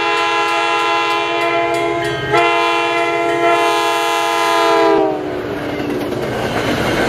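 Train horn blowing a long chord as a train approaches a grade crossing at speed. The pitch drops about five seconds in as the locomotive passes, and the horn gives way to the rushing noise of the cars going by. A crossing bell rings behind the horn for the first couple of seconds.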